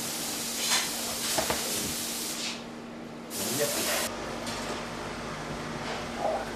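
Hand-operated micro-tube bender being worked: two bursts of hissing scrape as the handle swings the roller around the steel cone. The first burst lasts about two and a half seconds, and a shorter one comes past the middle.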